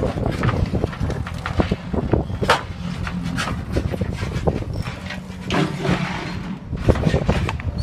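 JCB 3CX backhoe loader's diesel engine running steadily under load while it digs and moves soil, with irregular knocks and crackles over the engine drone.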